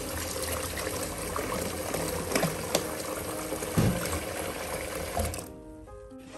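Kitchen tap running in a steady stream into a plastic basin of soapy water in a stainless steel sink, with a few light knocks. About five and a half seconds in the water stops, and background music is left.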